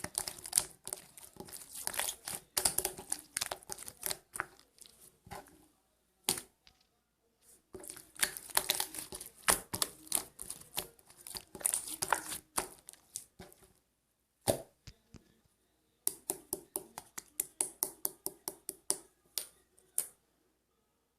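Slime being squeezed and pressed by hand, giving runs of crackling, popping clicks with short pauses between them, and a quick, even series of pops near the end.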